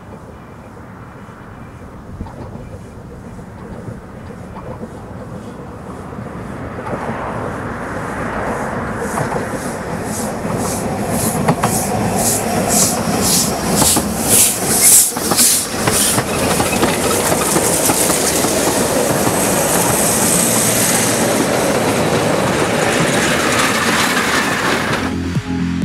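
Narrow-gauge train of small steam locomotives and wagons approaching and passing close by. The rumble grows from faint, with a run of rail clicks as the engines go past, about two a second. It then settles into a steady rumble as the wagons roll by.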